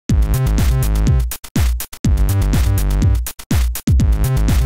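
Electronic intro music with a drum-machine beat and deep bass notes that drop in pitch, chopped by several abrupt short cut-outs.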